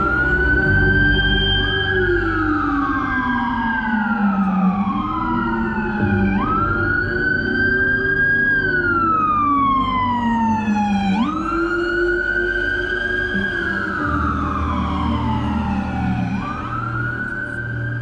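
A wailing siren, or several out of step. Each wail rises quickly, holds its pitch, then falls slowly over a few seconds, and the wails repeat and overlap.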